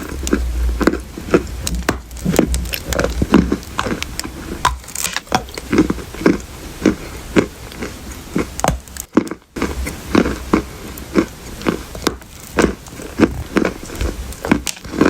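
Close-up crunching of dry clay being chewed, in steady bites about twice a second, with a brief break about nine seconds in.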